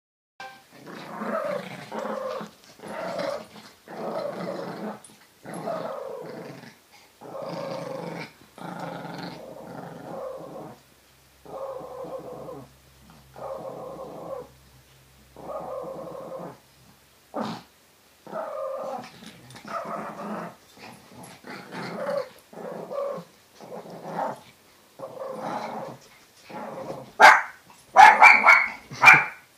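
Small dogs growling in repeated short bouts while tugging a rope toy between them in play. A dog barks sharply several times near the end, the loudest part.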